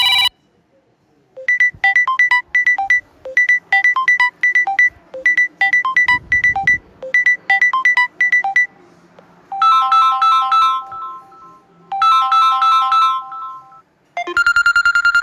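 Samsung phone ringtones and notification tones playing one after another: a short electronic melody of plinking notes repeated four times, then a different chiming tone with held notes played twice, and a new tone starting near the end.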